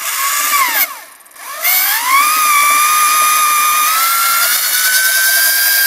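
Corded electric drill running and drilling into a plywood saw handle. Its whine falls in pitch and cuts out just under a second in, starts again about half a second later, then rises slowly in pitch as it keeps running.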